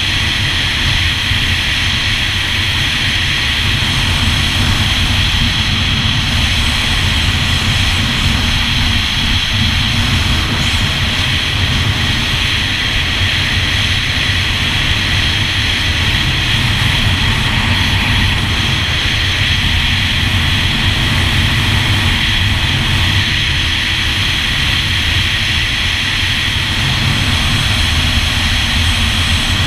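Yamaha GP1200R WaveRunner's two-stroke three-cylinder engine and jet pump running steadily under way, with the hull running through the water. The drone stays even throughout, with no revving up or down.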